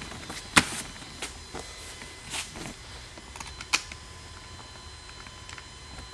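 Metal hip restraint and hinge tab assembly being set onto a golf cart seat base by hand: a few sharp clicks and knocks of metal against the seat frame, the loudest just over half a second in, then quieter handling.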